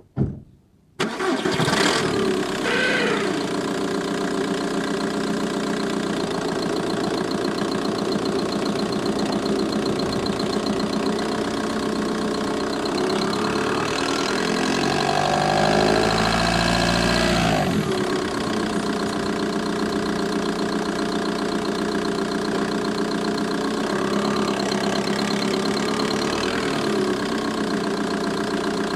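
VW Bora 1.9 TDI four-cylinder turbodiesel cranking and catching about a second in, then idling steadily with diesel clatter. The engine note briefly rises and falls past the middle. The ticking from the engine bay is what is being investigated.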